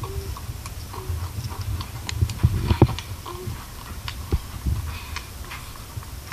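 Handling noise from a hand-held flashlight and phone close to the microphone: irregular clicks and taps over a low rumble, with one louder knock about three seconds in.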